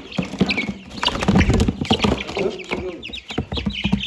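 A crowd of young chicks peeping in many short, high cheeps, over a dense rattling patter of chicken feed being poured into feeders.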